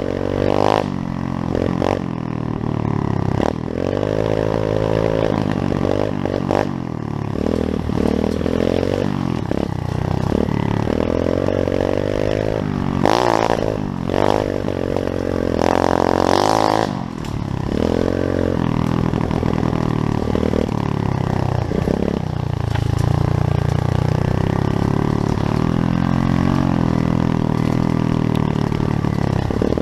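Pit bike engine revving, its pitch rising and falling over and over, then running at a steadier speed for roughly the last third.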